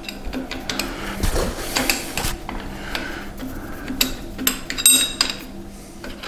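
Steel parts and hand tools clinking and scraping against a milling-machine vise as its jaw hardware is worked on by hand: a run of irregular sharp metal clinks, the loudest about five seconds in.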